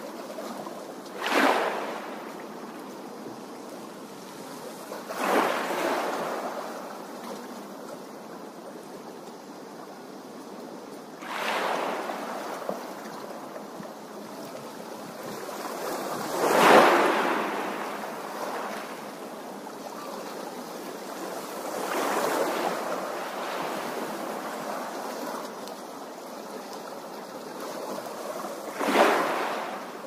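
Small waves splashing onto a shore: about six separate washes, each swelling and fading, every few seconds, with a steady hiss of water in between. The loudest wash comes a little past halfway.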